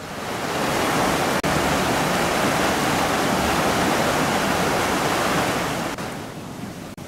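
Fast-flowing stream in a stone-lined channel, its white water rushing steadily. It swells in over the first second and fades out about six seconds in.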